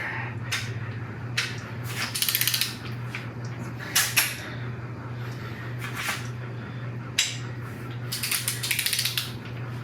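Large torque wrench ratcheting in quick runs on a cylinder head bolt of a 5.3 LS V8, with a few sharp single clicks, as the bolt is pulled to 50 foot-pounds in the torque sequence.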